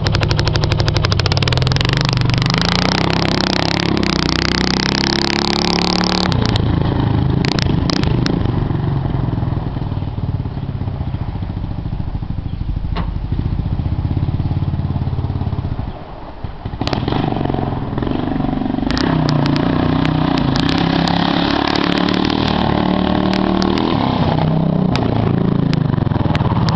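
2006 Honda TRX680 Rincon ATV's single-cylinder engine running loud with its muffler removed, revving up and down as it rides past, fading into the distance and growing loud again as it comes back from about halfway through. The engine is healthy and runs well.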